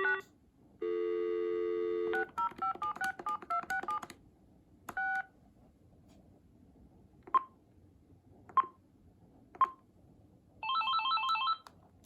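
AT&T cordless phone handset on speakerphone: a dial tone cuts off and comes back, then a fast string of touch-tone digits is dialed. A single beep, three short key beeps and a brief trilling tone follow near the end.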